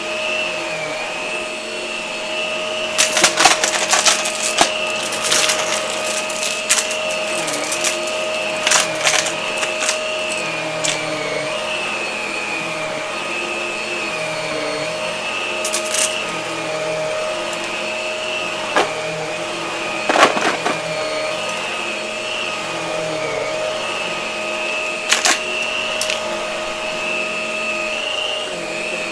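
Hart vacuum cleaner running steadily with a high motor whine, broken by bursts of sharp crackles as debris is sucked up.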